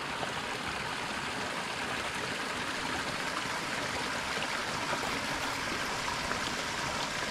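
Small creek splashing steadily down a little cascade over logs and rocks.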